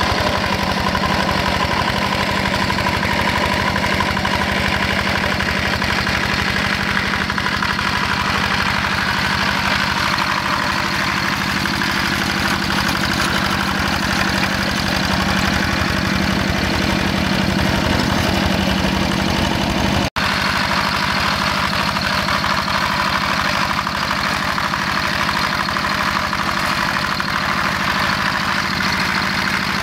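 The single-cylinder Yanmar diesel of a Quick G1000 two-wheel hand tractor running steadily under load while it ploughs wet paddy mud. The sound drops out for an instant about twenty seconds in.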